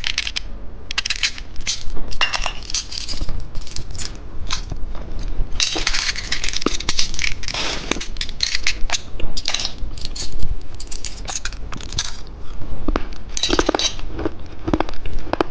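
Candy being crunched and chewed close to the microphone: an irregular run of sharp, crackly crunches.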